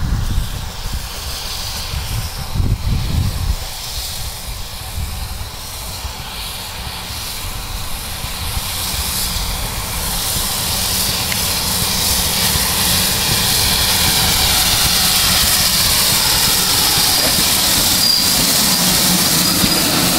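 GWR 56xx class 0-6-2T tank steam locomotive No. 5619 working under steam, a hissing, rumbling sound that grows louder over the second half as the engine comes near and passes close by.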